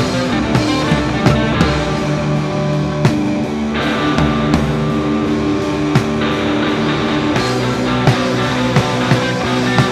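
Rock band playing live, an instrumental passage with electric guitar over a steady drum beat.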